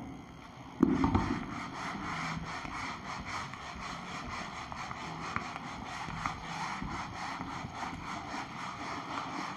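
A whiteboard eraser rubbed back and forth across a whiteboard in quick, even strokes, several a second. A single loud thump about a second in is the loudest sound.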